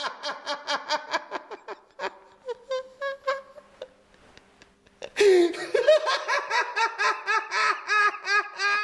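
A man laughing uncontrollably in rapid runs of pitched ha-ha pulses, about five or six a second. Partway through the laughter thins into a drawn-out high squeal and then a breathless near-silent pause, before bursting out loudly again about five seconds in.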